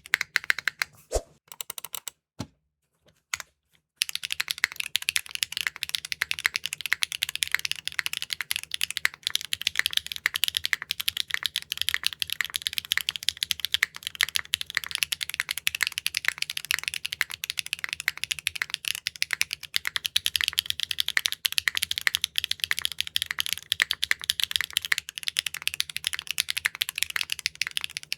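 Fast typing on a mechanical keyboard fitted with factory-lubed HMX T-Rex linear switches (POM stem, PC top housing, PA66 bottom) in a Neo65 Core Plus. A dense run of keystrokes stops about a second in, leaving a few isolated key presses, then steady rapid typing resumes about four seconds in.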